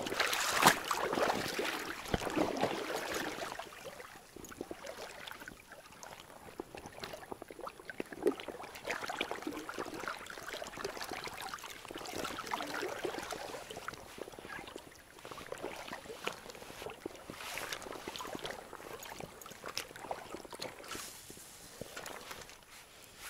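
River water swishing and splashing around a wading angler's legs, loudest over the first few seconds with a knock early on, then coming in weaker swells every few seconds.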